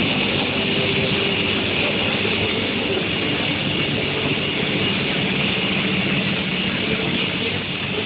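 Steel-sheet tempering furnace line running: a steady, loud machinery noise from the electric furnace, its gear motors and roller conveyor, with a steady high whine running through it.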